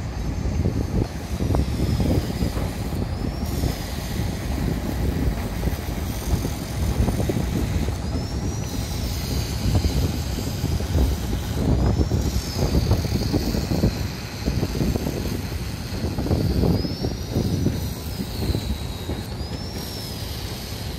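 Wind buffeting the microphone: a loud, uneven low rumble that swells and eases, with a faint high tone gliding up and back down several times.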